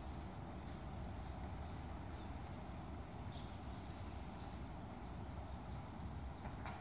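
Outdoor ambience at an open playing field: a steady low rumble with a few faint, distant knocks.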